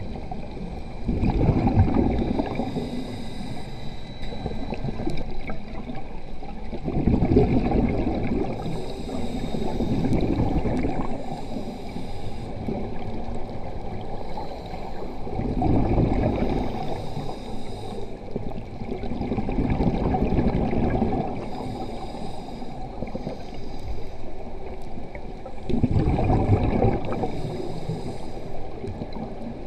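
A scuba diver breathing through a regulator underwater: about five exhalations, each a gurgling rush of bubbles lasting a couple of seconds, with faint hissing between them as the diver breathes in.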